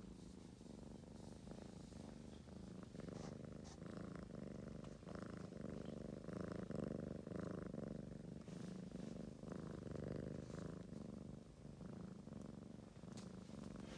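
Ragamuffin cat purring steadily while being petted, a low, even rumble.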